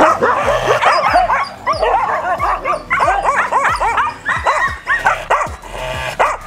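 Kombai dog barking rapidly and repeatedly, about three barks a second, with teeth bared.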